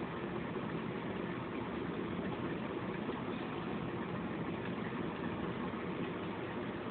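Electric fan running steadily: an even rush of moving air with a low whir, unchanging throughout.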